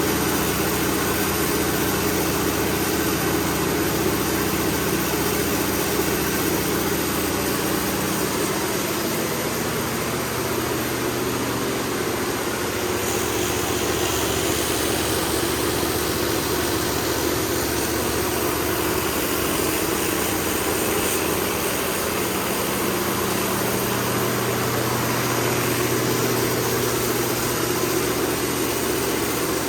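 MTU 1000 kW diesel generator set running steadily at constant speed on load bank test, an even engine drone with a broad rush of noise over it.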